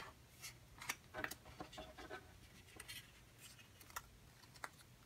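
Faint rustles and small crackles of a paper or cardstock cut-out being handled and folded along a crease, in short scattered bits.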